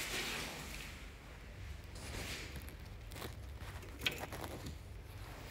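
Quiet room noise with faint rustling and a few light clicks and taps, the sharpest about four seconds in.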